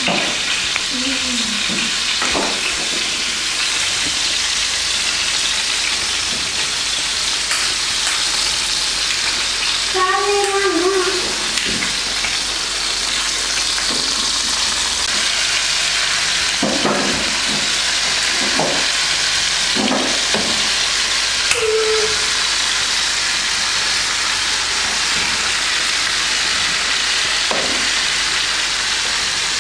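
Meat, potatoes and tomatoes sizzling steadily as they fry in a non-stick pan, with a few light knocks of a fork against the pan now and then.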